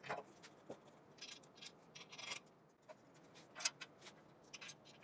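Faint, scattered small clicks and brief light scrapes of metal hardware handled by hand: a bolt, washer and nuts being fitted finger-tight to a steel tube door's hinge.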